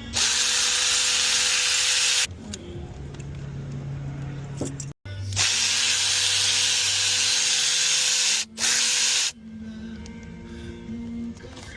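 Handheld power tool running in three bursts, two to three seconds each with a short one near the end, over background music with steady tones.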